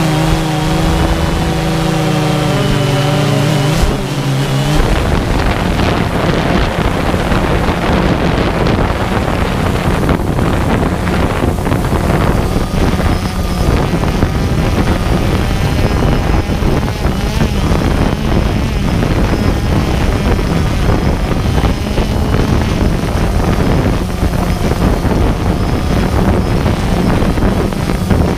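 Music ends about five seconds in, leaving the DJI Phantom 2 quadcopter's propellers whirring close to the on-board microphone with a steady low hum, mixed with wind noise as the drone hovers low.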